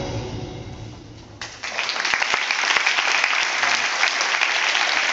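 Routine music fading out, then applause breaking out suddenly about a second and a half in and continuing steadily: spectators clapping at the end of a roller-skating pair's program.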